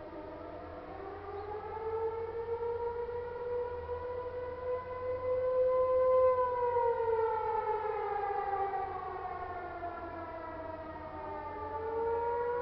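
Outdoor civil defense warning siren sounding the wailing attack signal. Its pitch winds up over a couple of seconds, holds, then slowly falls, and a new rise starts near the end. It is loudest around the middle.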